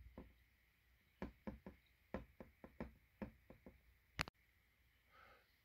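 A run of faint quick clicks and taps, about a dozen irregular ones, then one sharper click near the end, as a toy dinosaur figure's snout is held at the rim of a glass of drink.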